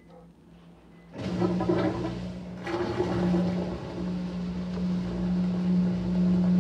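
Maytag top-load washer with its basket spinning; about a second in, a loud steady hum comes on suddenly together with rushing, splashing water.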